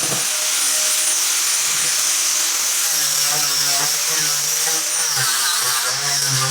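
Electric power sander running steadily while sanding the edges of a wooden plank tabletop to round them.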